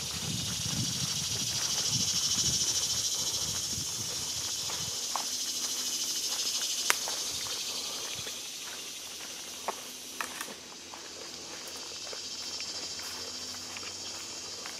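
A steady high-pitched insect chorus, loudest in the first few seconds and slowly fading, with scattered soft clicks of footsteps on the trail and a sharp click about seven seconds in. A low rumble underlies the first five seconds.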